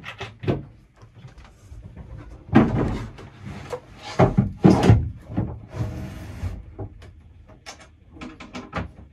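A yacht's companionway hatch being closed from below: a series of knocks and clunks, a scraping slide lasting about a second, then a few light clicks near the end.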